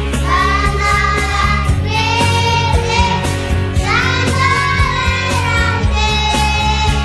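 A group of young children singing together over a loud recorded backing track with a heavy bass and a steady beat, holding long notes between phrases.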